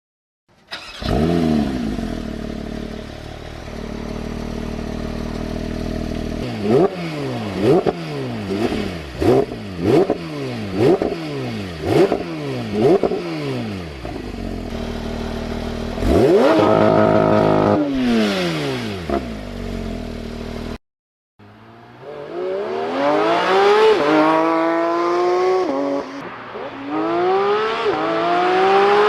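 Porsche 911 GT3 RS (992) 4.0-litre flat-six engine firing up with a rev flare and settling to idle. It then gives a string of about eight sharp throttle blips, roughly one a second, and a long high rev that falls away. After a brief break it accelerates hard up through the gears, its pitch climbing and dropping at each quick upshift.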